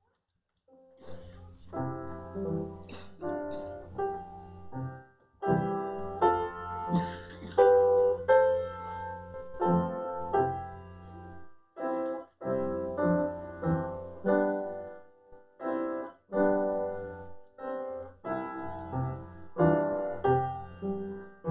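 Piano playing slow, quiet chords, beginning about a second in after near silence, with short pauses between phrases.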